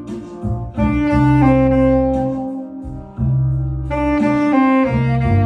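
Tenor saxophone playing a slow melody of long held notes, pausing briefly just under a second in and again about three seconds in, over a backing track with a steady low bass.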